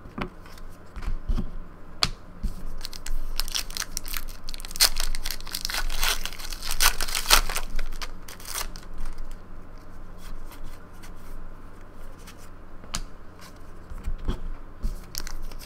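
Foil wrapper of an Upper Deck Goodwin Champions trading card pack crinkling and tearing as it is opened and handled, with cards being handled. The crackling is densest in the middle of the stretch and thins out near the end.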